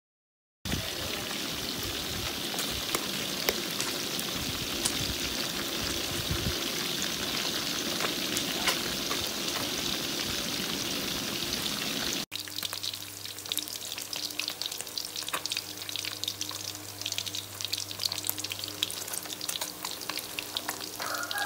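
Whole small stream fish deep-frying in hot oil, a dense sizzle with many sharp crackles and pops of spattering oil. About twelve seconds in the sound cuts to a quieter sizzle and crackle over a steady low hum.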